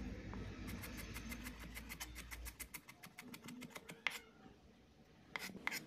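Chef's knife chopping a red onion on a wooden cutting board: quick, light taps of the blade on the wood, several a second, with a short pause near the end before the taps resume.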